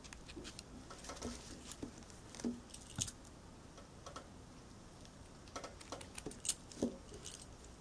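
Faint handling sounds of hand sewing: scattered soft clicks and taps as thread is pulled through a fabric-wrapped handle ring and snipped with scissors. The loudest clicks come in a pair near the end.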